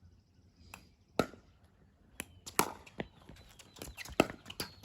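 Pickleball rally: sharp pocks of paddles striking a hard plastic ball, with lighter knocks of the ball bouncing on the court. The loudest hits come about a second in and again near the end, a few others in between.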